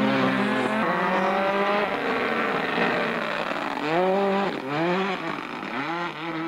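Ford Escort RS Cosworth Group A rally car's turbocharged four-cylinder engine running hard at high revs, then climbing in three quick pulls in the second half.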